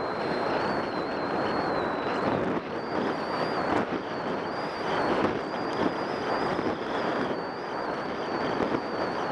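Skis scraping and carving over groomed, hard-packed snow on a downhill run, a continuous rough hiss with irregular surges as the edges bite, mixed with wind rushing over the microphone.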